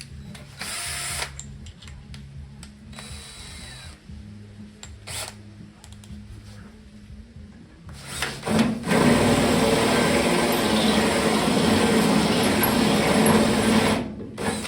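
Electric drill with a spot-weld cutter boring into the truck's sheet steel to cut out a spot weld. After a short whir about a second in and some handling clicks, the drill runs steadily under load for about five seconds, then stops.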